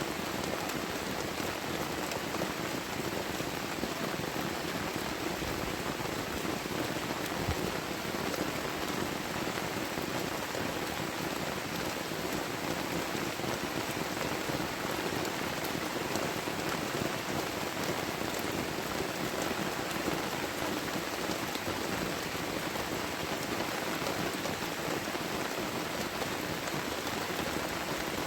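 Heavy tropical rain falling steadily: an even hiss with scattered drop ticks.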